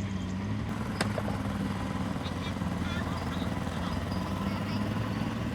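Heavy diesel engine of earthmoving machinery running steadily, a bulldozer or dump truck, with a single sharp click about a second in.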